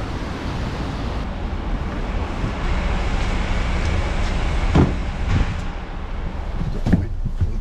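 Steady low rumble of a coach bus idling close by, with a few short knocks in the second half.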